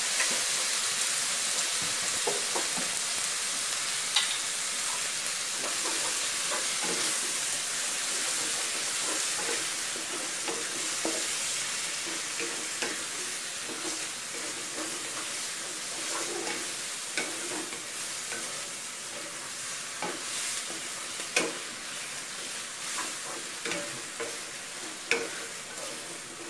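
Stir-fry sizzling in a nonstick wok while a wooden spatula stirs and scrapes through glass noodles, cabbage, shrimp and pork in a little liquid. The sizzle hiss slowly eases off, and a few sharper knocks of the spatula stand out in the later part.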